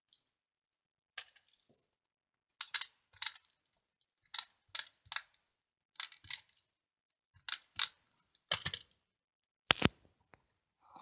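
Stampin' Up! SNAIL adhesive tape runner being drawn across paper leaves, laying double-sided adhesive in a series of short clicking rasps, many in pairs, with a heavier knock near the end.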